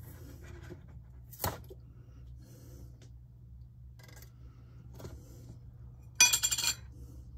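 Kitchen handling sounds at a counter: a few light clicks and clinks, then a short, rapid metallic clatter a little after six seconds in, over a low steady hum.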